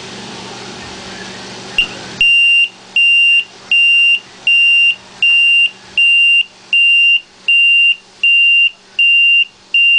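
Low-voltage alarm's buzzer beeping: a steady high tone about half a second long, repeated a little faster than once a second, starting about two seconds in after a brief chirp. The beeping signals that the supply voltage has dropped below the alarm's set point, with the meter reading 11.3 V.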